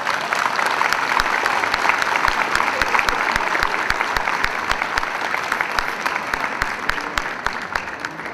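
Audience applauding: many people clapping at once, tailing off near the end.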